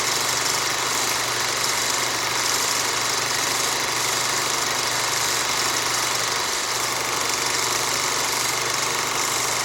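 Old film projector running: a steady mechanical whirring clatter over a constant low motor hum.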